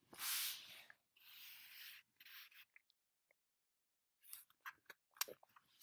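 Faint rubbing noise near the microphone, then near silence, then a few soft clicks near the end.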